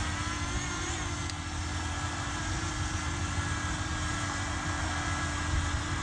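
Parrot Anafi quadcopter's rotors humming steadily in flight, a held whine whose pitch wavers briefly about a second in, over low wind rumble on the microphone.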